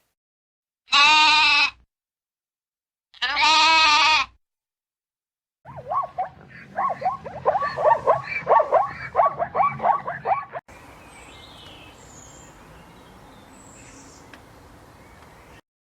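Two loud, wavering bleats from a goat-like farm animal, a couple of seconds apart. A quick run of short chattering animal calls follows, then quieter background noise with a few faint high chirps.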